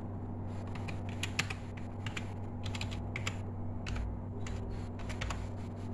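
Typing on a computer keyboard: a run of irregular key clicks, with a steady low hum underneath.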